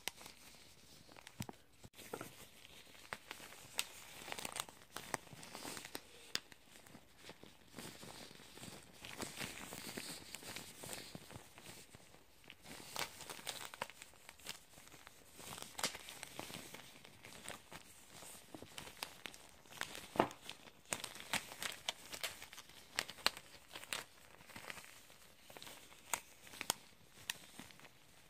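Facial-threading thread twisted and snapped right at the microphone by gloved hands: quick irregular ticks and small snaps over a soft rustle and crinkle of the gloves.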